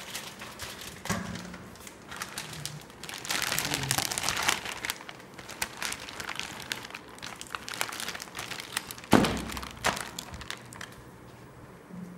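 Packaging being handled: irregular crinkling and rustling with scattered clicks and knocks, and one loud thump about nine seconds in.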